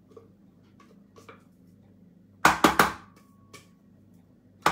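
A glass mixing bowl knocked three times in quick succession about two and a half seconds in, ringing briefly after the knocks, with a lighter knock a second later, as batter is scraped and shaken out of it; faint scrapes and ticks before.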